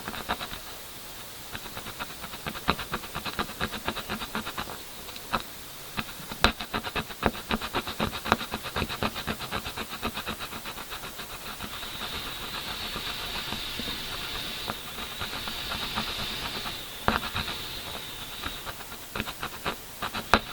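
Rapid scraping strokes on a painted canvas, lifting off dried 3D outline paint, in quick runs that pause and resume, with a steady high hiss underneath.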